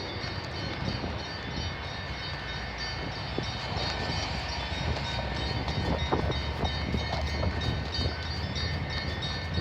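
Church bells ringing, several bell tones hanging on together with fresh strikes now and then, over a steady low rumble.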